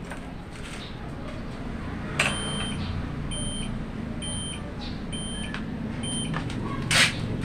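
An electronic buzzer beeps five times at an even pace, about one beep a second, each beep short and shrill. A click comes just before the first beep.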